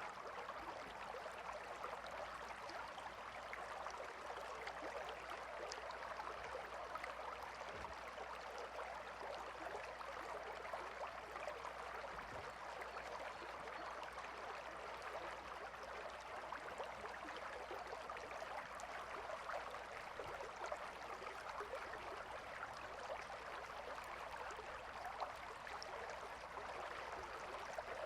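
River water flowing and babbling over stones in a steady, even rush, with many small splashes and trickles throughout.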